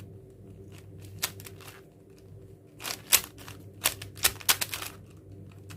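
A 4x4 Rubik's cube being turned by hand, its plastic layers clacking in quick runs of sharp clicks as an edge-pairing algorithm is worked through. There are a few faint clicks about a second in, and most come in the second half.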